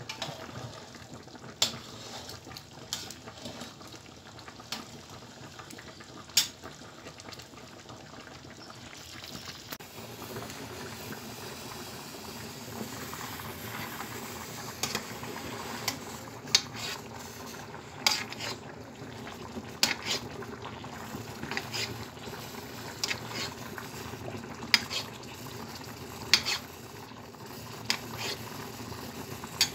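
Sugar syrup bubbling and sizzling in a metal pan as it soaks into a baked bread dessert, with scattered sharp clinks of a metal spoon against the pans. The bubbling grows fuller about ten seconds in.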